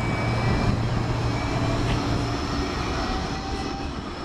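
Flexity tram passing on its electric drive: a low hum that stops about halfway through, with faint whining tones above it, the sound fading as the tram moves away.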